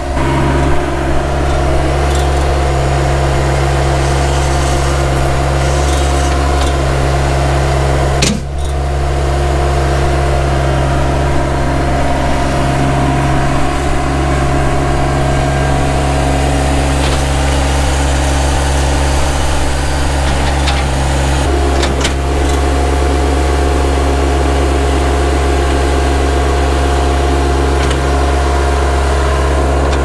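Compact tractor-loader-backhoe's engine running steadily at a constant speed close by, with a brief dip about eight seconds in.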